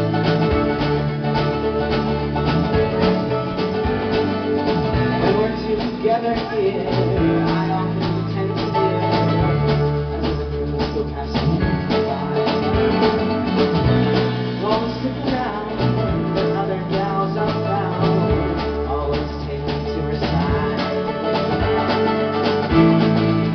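Live folk-pop band playing a song: strummed acoustic guitar, mandolin and keyboard over a changing low line, with a male lead vocal singing at times.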